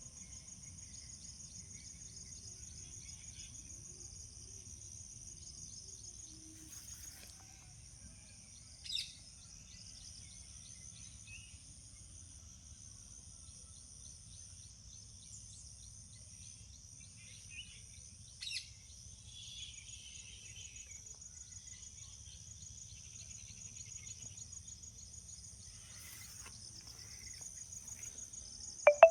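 Steady, high, finely pulsing insect chorus of crickets, with a few brief bird chirps scattered through it. Near the end comes one short, loud, downward-sliding squeal.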